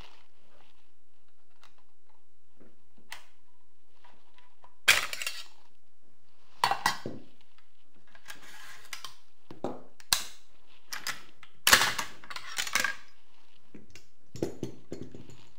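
Irregular metallic clinks and clatter as an RPK machine gun and its parts are handled on a tabletop: a dozen or so separate knocks, the loudest about twelve seconds in.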